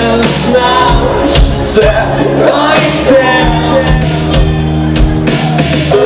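Live rock band playing loudly: electric guitars, bass and drums, with a wavering lead melody line over them.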